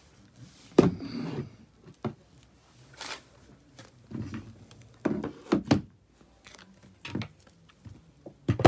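Irregular thumps and knocks from things being handled and set down, with some rustling in between. The loudest thump comes about a second in.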